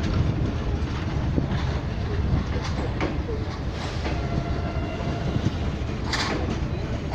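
Passenger train coaches rolling past on departure: a steady low rumble of wheels on track, with wheels clacking over rail joints and one sharper clack about six seconds in.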